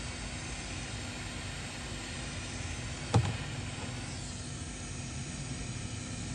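Hot-air rework station blowing a steady hiss with a low hum, heating a replacement GPU chip to solder it onto a laptop motherboard. A single sharp click a little after three seconds in.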